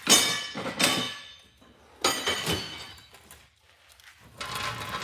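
Steel body hammers clanking as they are put down and knock together. There are sharp ringing clanks right away, another just under a second in, and two more about two seconds in, then faint handling noise near the end.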